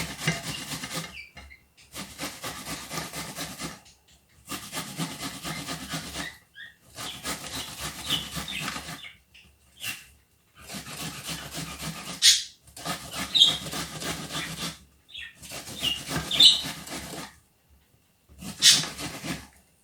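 A small onion being grated on a fine hand grater: runs of quick rasping strokes, each run a second or two long, with short pauses between them.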